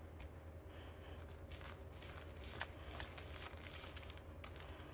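Faint scraping and light ticks of a metal spoon spreading sauce across a toasted burger bun, the strokes starting about a second and a half in.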